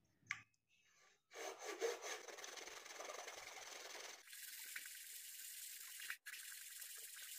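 Hacksaw blade sawing into a block of babool wood, a faint rasping that starts about a second in and carries on steadily, cutting down to a marked line.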